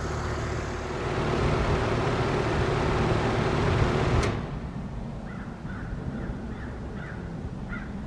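Carrier 2-ton heat pump outdoor unit running with its compressor hum and condenser fan, then shutting off about four seconds in with a sharp click. The running sound drops away at once, and the fan spins down quickly.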